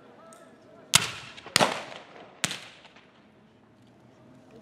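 Three black-powder rifle shots fired as blanks by Civil War reenactors, coming about a second in, just after, and near the middle, each followed by a short echo.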